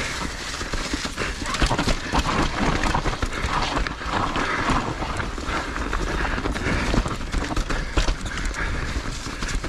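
Edges scraping and chattering over firm snow during a run downhill, in a dense, irregular clatter, with wind rumbling on the microphone.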